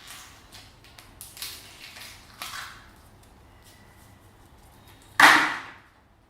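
Slime being squished and worked by hand, with a run of soft sticky squelches in the first three seconds, then one loud sudden squelch about five seconds in that fades quickly.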